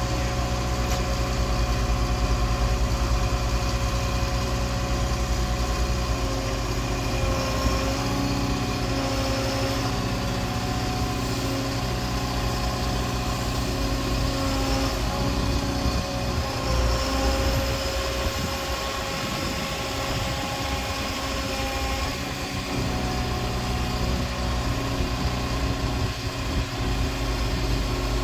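Liebherr A 912 Compact wheeled excavator's diesel engine running steadily while its hydraulics work the boom and stick. Whining tones rise and fall in pitch as the arm moves.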